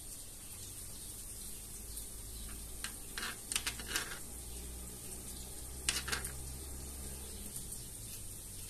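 Small knife chopping peeled tomato on a plastic cutting board: a quick cluster of sharp taps of the blade on the board about three seconds in, and a couple more about six seconds in, over a steady hiss.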